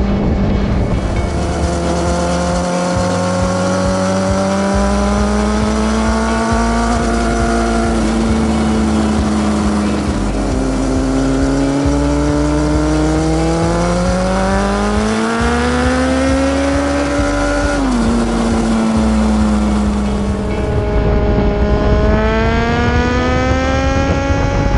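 A sport motorcycle's engine under way, its pitch climbing and easing several times with a sudden drop about 18 seconds in, like a gear change. Background music with a bass line runs underneath.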